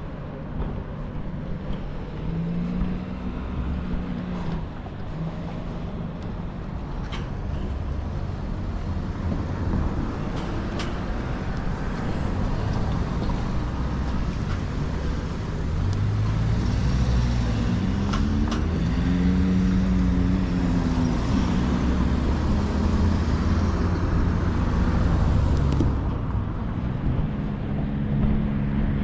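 Road traffic: cars driving past close by, engines rising and falling in pitch over a steady tyre and road noise, growing louder past the middle.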